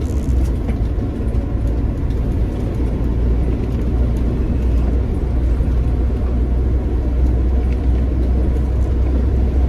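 Iveco Daily camper van on the move, heard from inside the cab: a steady low engine and road rumble.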